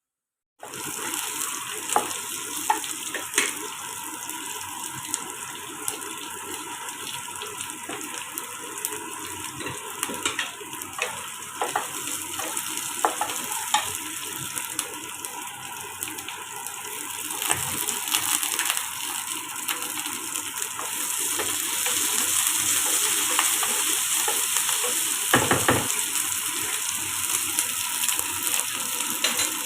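Food stir-frying in hot oil in a pan, a steady sizzle with frequent clicks and scrapes of a spatula against the pan. It starts suddenly just after the beginning, and the sizzle grows louder about two-thirds of the way through.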